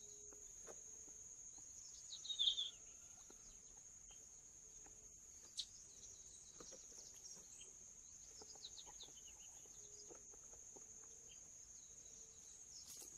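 Steady high-pitched insect drone with scattered bird chirps; a louder burst of bird calls comes about two seconds in, more calls near the end, and a single sharp click about halfway through.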